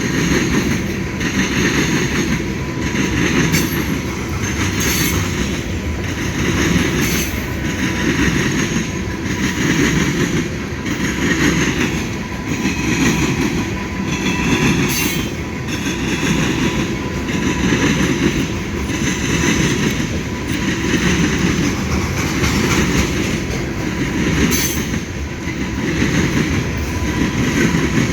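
Train cars rolling past, their wheels clicking in a steady rhythm over rail joints, with a thin, steady wheel squeal.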